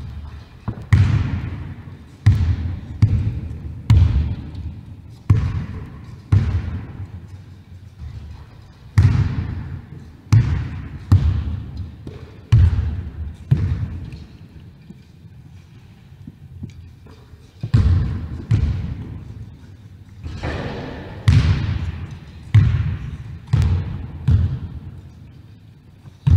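Basketball bouncing on a wooden sports-hall floor: sharp, echoing bangs about once a second, in runs broken by short pauses, as a wheelchair player dribbles between layups.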